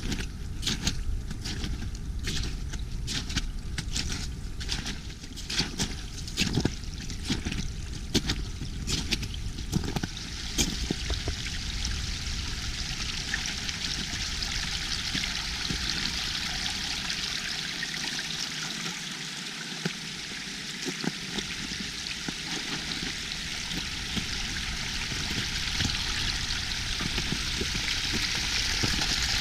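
Meltwater trickling and running over and under the ice of a frozen creek and waterfall: a steady splashing hiss that grows a little louder near the end. During the first ten seconds or so it is broken by a run of sharp clicks and crunches.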